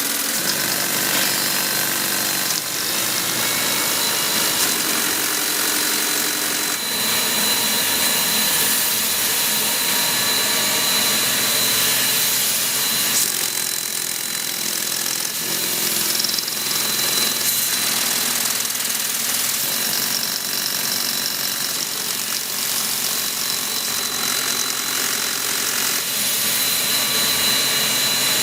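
Mechanical towel-weaving loom running steadily, a continuous loud machine clatter with a thin high whine held throughout.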